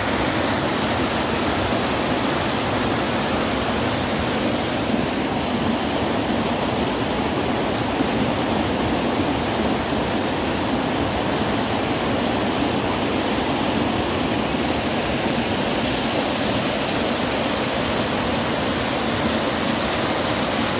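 Muddy floodwater rushing past in a fast, churning torrent: a steady rush of water noise with no breaks.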